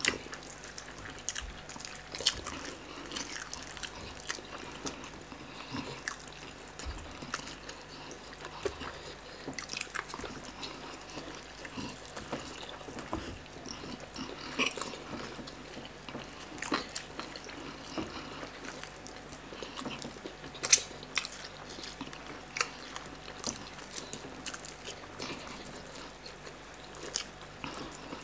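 Close-up eating sounds: chewing, wet smacking and crunching as cooked chicken is torn apart by hand and eaten fast, with many short sharp clicks and one louder click about two-thirds of the way through.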